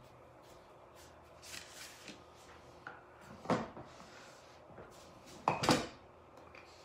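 A few light knocks and clunks as a glass jar and a rolling pin are shifted and set down on a countertop. The loudest come about three and a half seconds in and a double clunk about five and a half seconds in.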